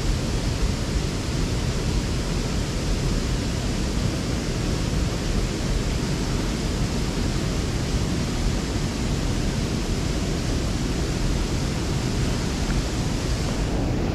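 Steady rushing of water pouring through a small river's spillway, an even, unbroken noise at a constant level.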